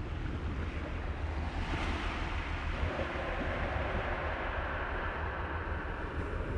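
Seaside ambience: wind rumbling on the microphone under the wash of calm sea waves, the wave hiss swelling about two seconds in and holding.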